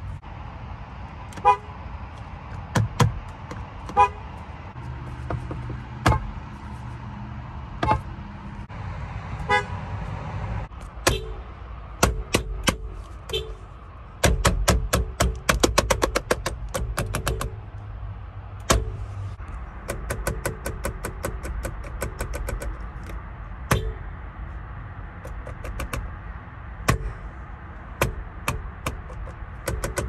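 Car horns tapped in short beeps, first a Lexus's and then a Honda's, with a quick run of rapid beeps in the middle.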